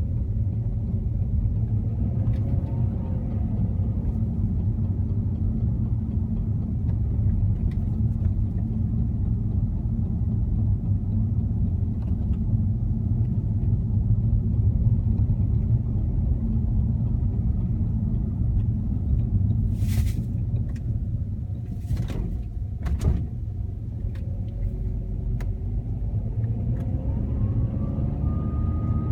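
Saab 9-3 car running with a steady low rumble, and a few sharp knocks about two-thirds of the way through: the knock that is the car's fault. Near the end a whine rises and then holds steady.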